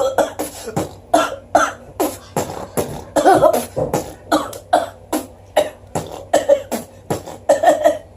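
A person coughing hard in a long unbroken fit, about three short coughs a second, set off by drinking a tea that makes him cough.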